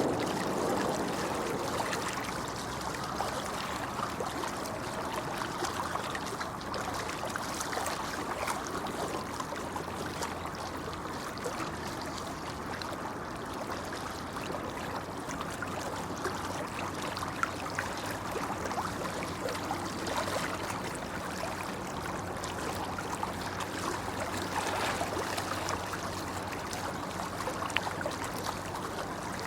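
Shallow stream flowing steadily, an even babbling rush of water.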